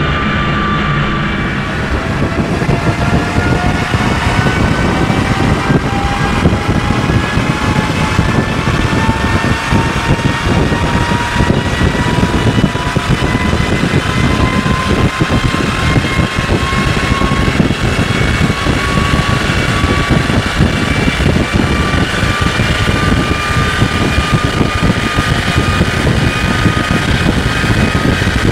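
Mercedes W124 300TD's turbo-diesel straight-six pulling under full load on a chassis dynamometer, with its rollers turning. After a short dip about a second and a half in, the engine speed climbs slowly and a whine rises steadily in pitch.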